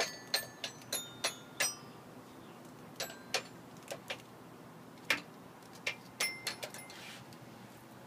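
A child's xylophone struck note by note with a mallet: a quick run of about six ringing notes in the first second and a half, then a pause and scattered single notes with gaps, a few in a quick cluster past the middle.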